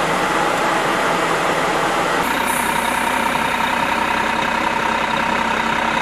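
Military convoy vehicles driving on a dirt road, with engine and tyre noise. About two seconds in, the sound changes abruptly to a steady engine drone with a constant hum, as heard riding on one of the vehicles.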